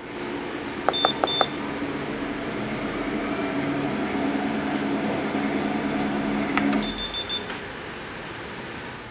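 Mini treadmill's electric belt motor running with a steady hum, while its control panel beeps twice about a second in. Near seven seconds the panel beeps a few times and the motor hum stops, as happens when the safety pull cord is pulled from the console; a steady hiss remains.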